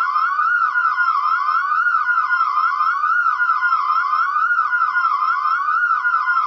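Synthesized alarm siren: a high, continuous tone warbling rapidly up and down, about three sweeps a second, steady in level throughout.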